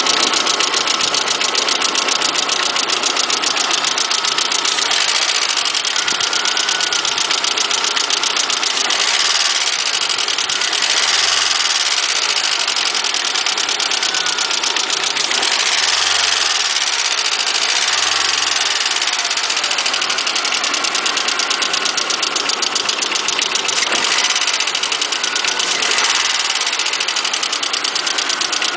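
Vehicle engine running steadily with a fast, even clatter, the rattling noise that is the complaint about this engine.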